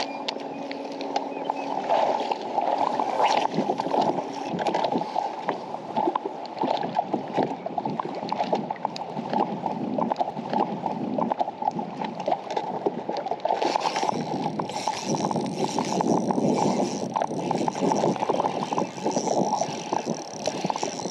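Water lapping and slapping against a bass boat's hull, with wind on the microphone. About thirteen seconds in, the sound turns brighter and hissier.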